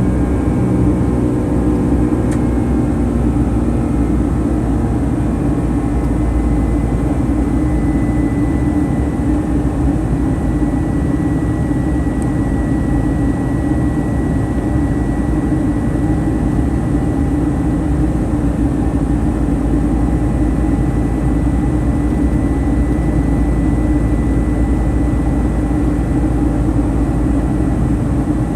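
Boeing 757-200 cabin noise: a steady loud roar of jet engines and airflow. Its engine tones fall slightly in the first few seconds, then settle into an even rumble with a thin high whine.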